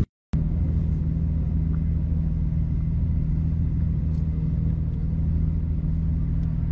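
Race car engine running steadily, a low even rumble heard from inside the cabin with no revving. It starts abruptly just after a brief gap of silence at the start.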